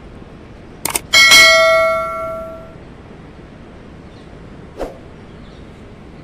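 A single loud metallic clang, struck just after a short knock about a second in, ringing out with several clear tones and dying away over about a second and a half.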